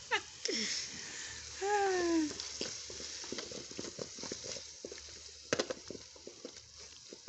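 Onions, tomatoes and peppers sizzling in an aluminium pot while a wooden spoon stirs them, with repeated light knocks of the spoon against the pot and one louder knock near the end. A short falling voice sound about two seconds in.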